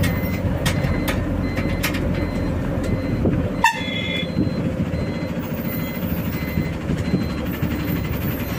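Road traffic with heavy vehicle engines running steadily, a short horn toot about three and a half seconds in, and faint repeated beeping throughout.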